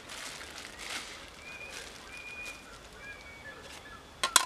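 A bird gives a few thin, level whistled notes over faint rustling and handling noise. About four seconds in comes a quick cluster of loud sharp clicks as camp gear is picked up.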